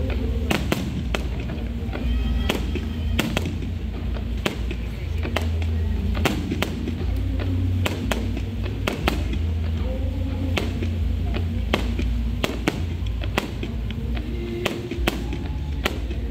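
Aerial firework shells bursting in an irregular barrage, about two sharp bangs a second, over a continuous low rumble.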